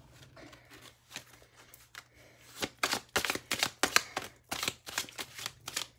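A deck of oracle cards being shuffled by hand: soft scattered card sounds at first, then a fast, louder run of card clicks from about halfway on.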